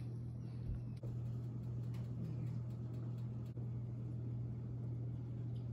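A steady low hum over faint background noise, with a faint click about a second in.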